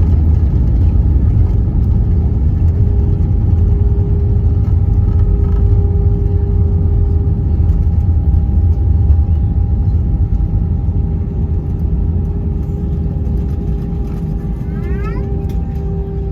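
Airbus A320 heard from inside the cabin just after touchdown: a loud, low rumble of the aircraft rolling down the runway with steady engine tones, slowly quieting as it slows down. A few brief rising whines come near the end.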